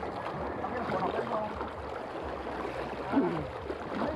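Small sea waves washing and splashing over shore rocks, a steady rushing noise.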